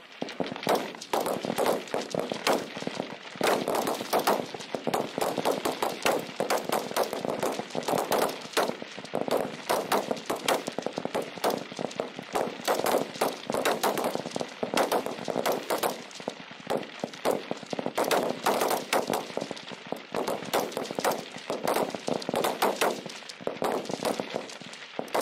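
Many Marine service rifles firing at once along a rifle-range firing line: a dense, irregular stream of overlapping shots that never stops.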